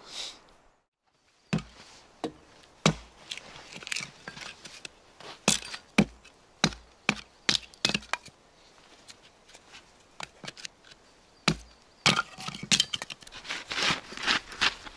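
Hatchet splitting firewood into kindling: a series of sharp wooden chops and cracks at irregular intervals, with a denser run of strikes near the end.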